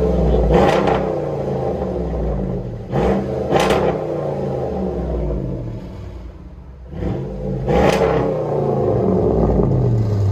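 A 2005 Ram 1500's 5.7-litre Hemi V8 revved several times through a Black Widow Widow Maker muffler, a 2.5-inch single pipe and dual stainless tips. Each rev climbs sharply, then drops back toward idle.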